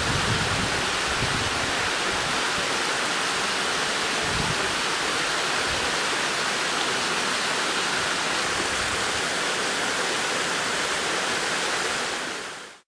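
Steady rush of water falling into a limestone pothole shaft, with a few low rumbles near the start and after about four seconds. The sound fades out near the end.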